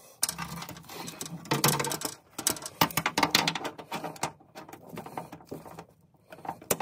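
Pliers clicking and scraping against the metal linkage of a car door latch mechanism while a rod is fitted to it: a run of irregular small metallic clicks and rattles with short pauses.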